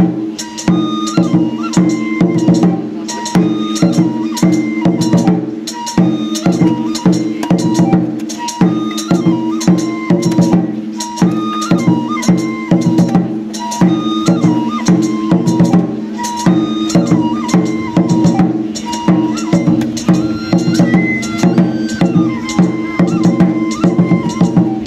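Traditional Japanese shrine dance music: drums beaten in a steady, fast rhythm under a flute melody of short held notes.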